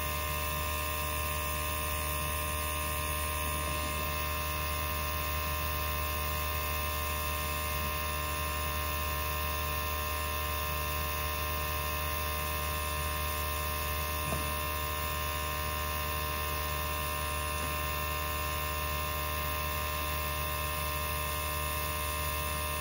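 Small airbrush compressor running with a steady electric hum, and air hissing from the airbrush as it blows across wet acrylic paint.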